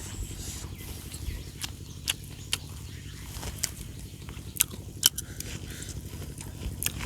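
Someone eating: chewing and biting into food, with sharp crunchy clicks about every half second to a second.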